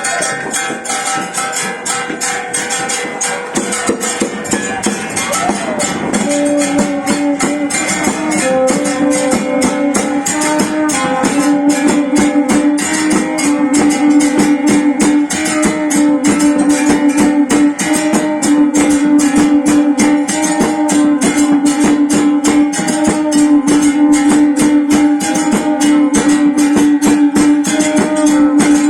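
Live procession music: a fast, even percussion beat, joined about six seconds in by a melody of long held notes that grows louder.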